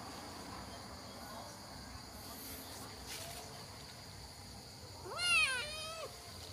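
A kitten mewing once, about five seconds in: a high mew that rises then falls, lasting about a second.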